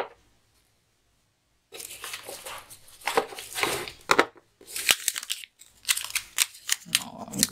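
Crinkling and crackling of a metallised anti-static bag being handled, starting about two seconds in after a brief quiet.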